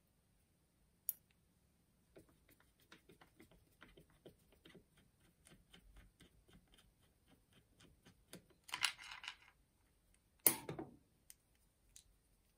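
A screwdriver turning out the M4x12 screw that holds the bit holder to a Makita DF001G drill-driver's plastic housing: a run of small quick clicks and creaks. It is followed by a short scrape around 9 s and a sharp clack around 10.5 s as the parts come apart.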